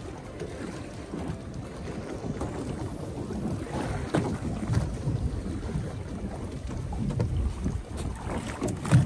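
Wind buffeting the microphone on a boat at sea, a gusting low rush, with a couple of brief knocks about four seconds in and near the end.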